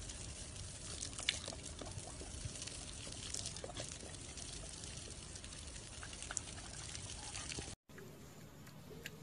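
Steady rush of running water with scattered small clicks, cutting off suddenly a little before the end and giving way to quieter background.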